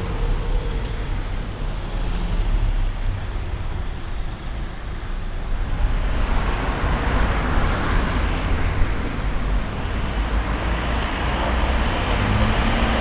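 Wind rumbling on the microphone, with lake waves washing against the shore; the washing grows louder about six seconds in.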